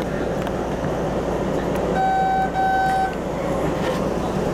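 MBTA Red Line subway train rumbling steadily as it moves slowly, with two short horn toots of the same pitch about two seconds in, back to back and about a second long together.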